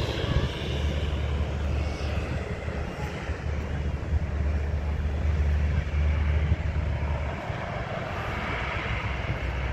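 Aircraft engine noise from a plane landing on the runway: a steady rush with a heavy low rumble, easing slightly in the last couple of seconds.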